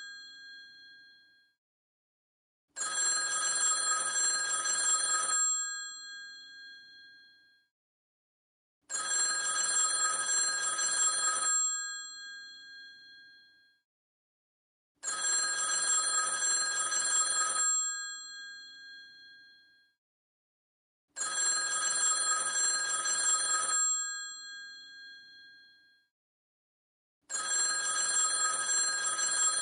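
Old telephone's mechanical bell ringing in the classic cadence: five rings of about two and a half seconds each, starting roughly every six seconds. The bells hum on for a moment after each ring stops, and the tail of an earlier ring fades out at the start.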